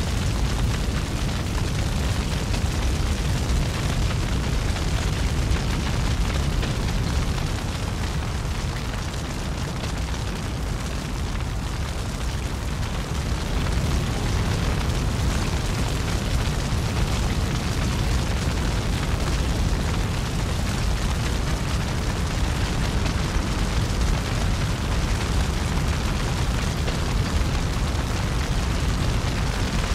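A steady, loud rumbling noise, heavy in the lows, with no distinct hits or tones; it dips a little around ten seconds in.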